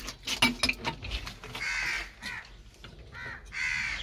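A crow cawing several times, two of the caws longer than the rest, with a cluster of sharp taps and clicks in the first second.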